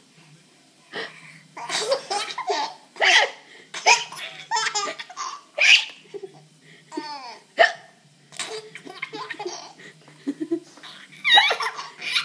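A baby giggling in short bursts, broken by sudden hiccups.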